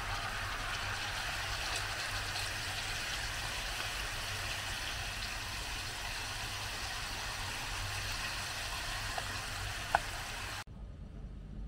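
Chicken pieces sizzling and bubbling in a pan of oil, butter and pomegranate sauce: a steady frying hiss. There is one sharp tap about ten seconds in, and the sizzle then cuts off suddenly.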